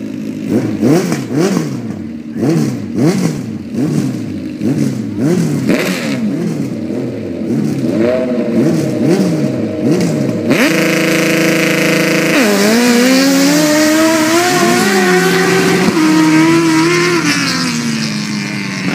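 Drag-racing ATVs revved in quick blips, about one a second, at the start line; one of them is powered by a Suzuki GSX-R1000 inline-four engine. About ten seconds in, the engine note jumps to a steady high pitch for about two seconds, then climbs and drops at several gear shifts and fades as the quads run down the strip.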